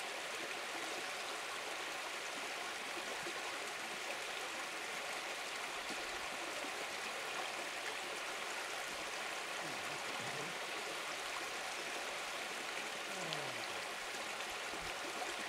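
Shallow river running over a riffle: a steady, even rush of flowing water.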